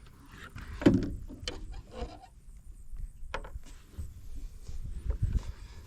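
Handling noise from re-rigging fishing tackle: scattered knocks, clicks and rustles on wood, with a sharp knock about a second in and a dull thump near the end.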